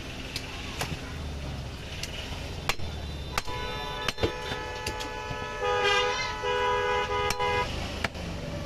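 Vehicle horns honking, a long steady honk from about four seconds in to near the end and loudest around six seconds. Scattered sharp knocks from a cleaver chopping meat on a wooden block.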